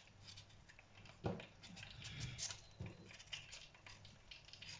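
Kitchen knife peeling a sweet potato in quick, short scraping strokes, with a knock about a second in. Prawns deep-frying in an electric fryer bubble faintly underneath.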